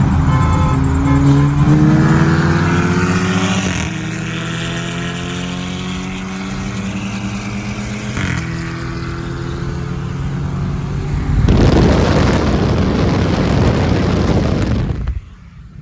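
Car engine accelerating hard: its pitch climbs, drops at a gear shift about four seconds in, climbs again and drops at a second shift about eight seconds in. From about eleven and a half seconds a loud rush of wind and road noise takes over, then falls away suddenly near the end.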